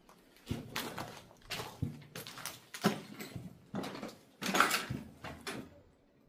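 Footsteps on a debris-covered floor, an uneven run of scuffs and crunches about one or two a second, the longest and loudest about four and a half seconds in.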